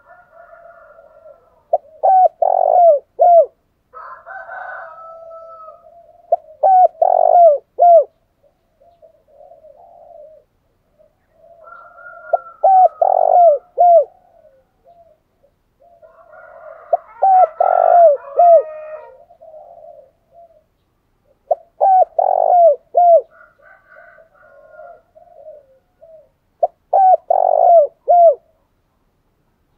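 Spotted dove cooing: six bouts of three or four quick coos, each note falling in pitch, about every five seconds, with fainter bird calls between them.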